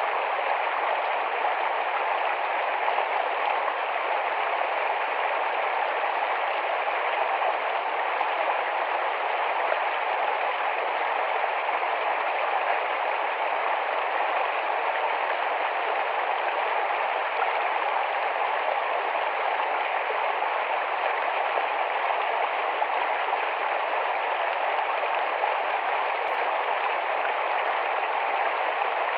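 Rapid, shallow forest stream flowing with a steady rush of water.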